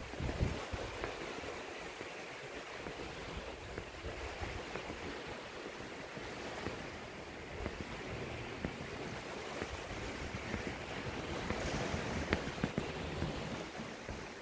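Surf washing onto a beach in a steady rush, with wind buffeting the microphone.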